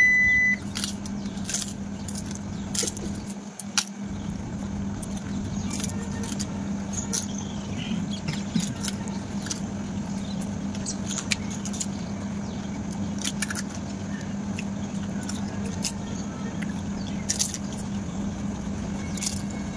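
A short beep at the very start, then golgappa (pani puri) being eaten: scattered clicks and crunches of the crisp shells being cracked open and of puris and fingers knocking on steel plates. A steady low hum lies under it.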